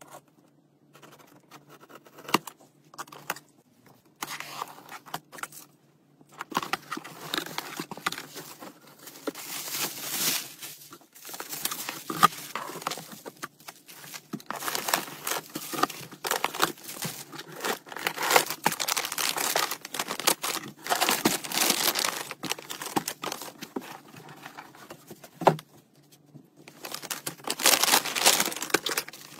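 A cardboard parcel is unboxed by hand: packing tape tears and the cardboard flaps are pulled open. Then plastic packaging of cat food bags crinkles and rustles, with a few sharp snaps, on and off throughout.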